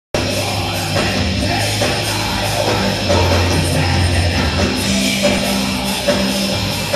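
Heavy metal band playing live and loud: distorted electric guitars, bass and drums, with a singer.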